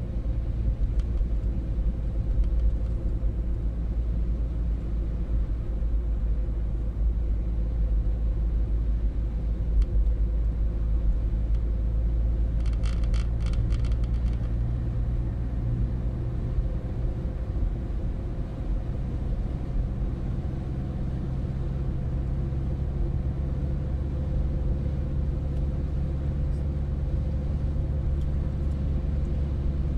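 Steady engine and tyre rumble heard from inside a car cruising on an open road. A brief run of rapid, evenly spaced high clicks comes about halfway through.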